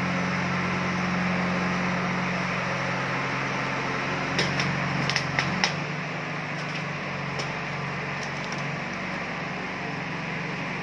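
Steady mechanical hum with an even hiss, like fans or running machinery. A quick run of sharp clicks or knocks comes a little under halfway through.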